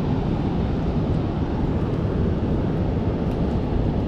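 Steady low rumbling noise outdoors, with no distinct clicks, knocks or changes.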